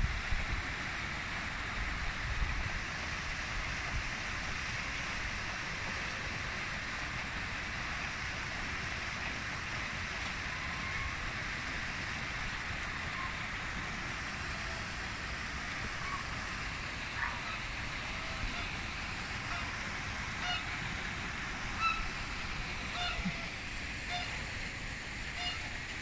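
Steady rushing of a small waterfall and stream running into a pond, with short honks from domestic geese starting past the middle and coming several times near the end.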